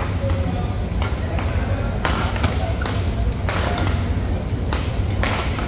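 Badminton rally: rackets hitting the shuttlecock in a string of sharp smacks at uneven intervals, a few tenths of a second to about a second apart, over a steady low hum of the hall.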